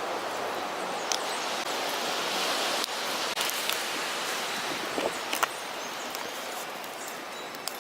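Strong wind rushing over the microphone and through leaves, with a handful of sharp clicks scattered through it from pruning shears snipping old Veronica stems.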